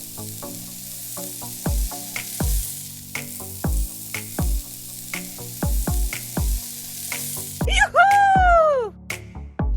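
Background electronic music with a steady kick-drum beat under a high hiss; near the end the hiss cuts off and a loud falling synth sweep plays.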